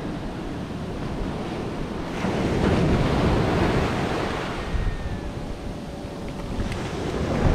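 Ocean surf breaking and washing up the beach, with wind buffeting the microphone. The surge swells about two seconds in and eases off again later.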